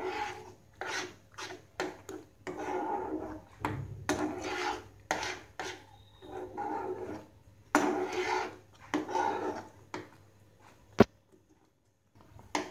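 A metal ladle stirring thick semolina halwa in a nonstick frying pan, scraping across the pan bottom in repeated strokes about one every half second to a second, until the stirring stops about ten seconds in. A single sharp click comes near the end.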